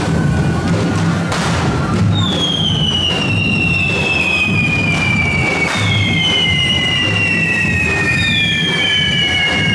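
Whistling fireworks at a correfoc: three long whistles, each starting high and sliding slowly down in pitch, overlapping one another, over steady drumming and a few sharp bangs.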